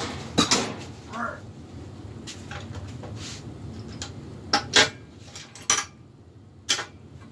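Metal hand tools (wrenches and pliers) clinking and knocking as they are set down and handled on a metal stand: a handful of separate sharp clanks, the loudest a pair a little past halfway.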